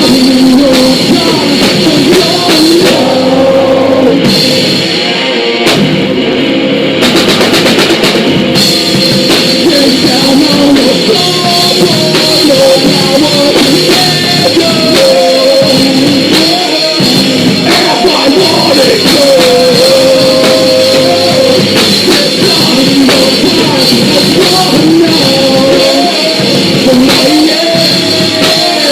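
Live punk rock band playing a song loudly, with drum kit and sung vocals.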